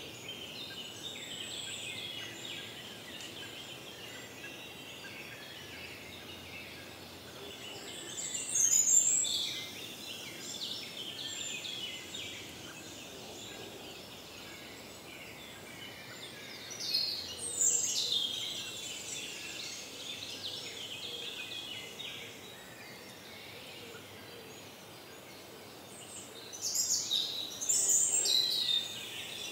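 Woodland songbirds in a dawn chorus: a steady tangle of chirps and song. One louder song phrase, falling in pitch, stands out three times, about nine seconds in, near eighteen seconds and near the end.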